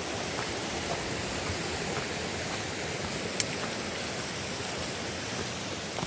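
Mountain creek water rushing steadily under a road bridge, an even hiss with no changes. A single faint click about three and a half seconds in.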